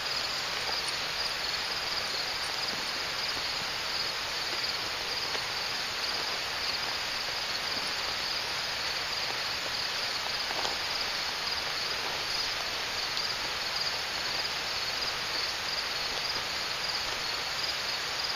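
Field insects trilling: a steady, high-pitched chorus that runs on without a break, over a constant background hiss.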